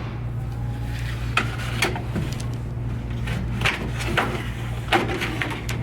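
A part being worked loose and pulled out of a vending machine by hand: scattered knocks and clicks, over a steady low hum.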